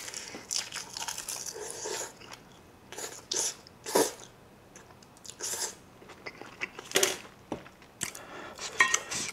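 A person chewing and biting mouthfuls of kimchi fried rice and seaweed, with wet mouth noises and a few sharp smacks at irregular intervals.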